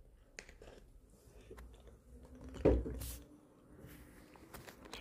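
Someone eating: faint chewing and small clicks, with one dull bump and a short sharp clack about two and a half seconds in.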